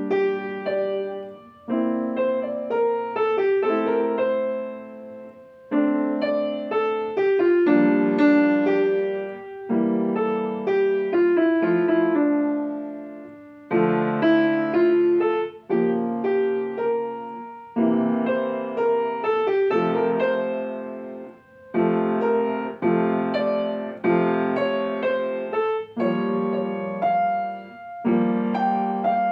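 Solo piano playing a classical piece, melody over chords in phrases of several seconds with short breathing pauses between them.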